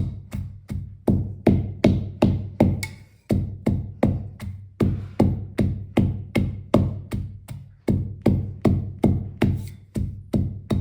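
Pestle pounding softened coconut in a kundi mortar: steady, heavy strikes about three a second, each with a short low ring, broken by two brief pauses.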